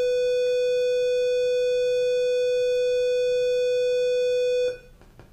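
One long, steady electronic beep at a single pitch, loud and unchanging, cutting off abruptly after about four and a half seconds.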